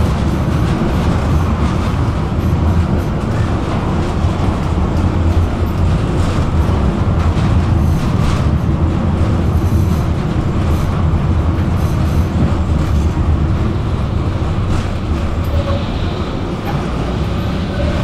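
Tram running along the track, a steady low rumble of wheels on rails with a few light clicks.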